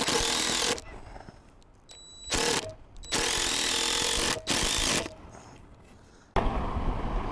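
Cordless power driver running screws into wood in four bursts, the longest about a second and a half, with short pauses between. Near the end, wind buffeting the microphone sets in suddenly.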